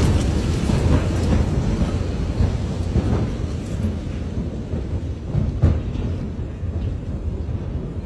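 Deep, steady rumbling in the seconds after a large explosion, slowly fading, with a sharp thump about five and a half seconds in.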